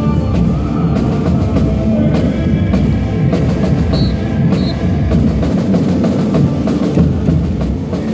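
Boi-bumbá toada music driven by a large drum and percussion section, with bass drums and snares keeping a steady beat.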